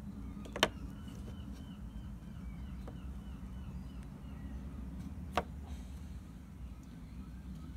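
Two sharp clicks, about five seconds apart, as an iPhone and an iPod touch are handled on a wooden bench. Between them a bird repeats a quick chirping note several times a second, over a steady low outdoor rumble.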